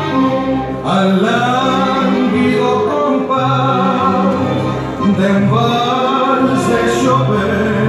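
Recorded tango music playing loudly, a singer's voice over an orchestra.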